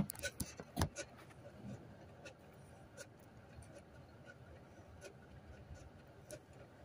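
A few sharp knocks and clicks of a phone being handled in the first second, then faint rustling with scattered light ticks.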